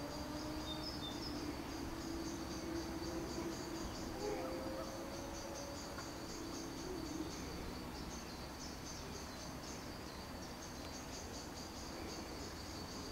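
Crickets chirping steadily outdoors: a continuous high-pitched, rapidly pulsing chirr. Faint drawn-out low tones sound underneath in the first half.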